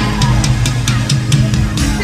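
Loud concert music with a steady drum beat and bass, played over a PA.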